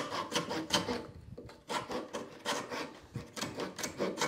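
Backsaw cutting a small walnut strip into wedges by hand, in quick even strokes of about four a second, with a short pause about a second and a half in before the sawing resumes.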